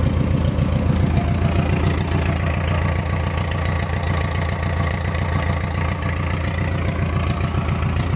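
An old JCB's diesel engine idling steadily, with an even, fast low chug.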